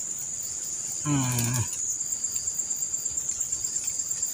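Insects chirring steadily and high-pitched, a continuous shrill drone. A brief voiced sound, a short utterance, comes about a second in.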